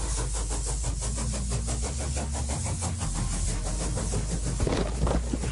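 Background electronic music with a heavy held bass line that steps between notes, over a fast, steady beat.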